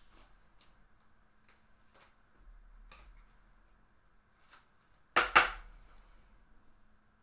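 Trading cards and packs being handled on a table: faint light clicks, then a brief loud handling noise with two quick peaks about five seconds in.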